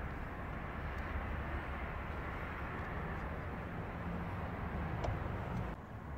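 Steady outdoor background rumble with a low hum, with a couple of faint clicks from handling the plastic diesel filter housing.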